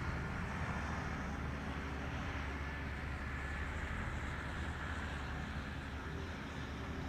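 A motor droning steadily at a low pitch, with outdoor background noise.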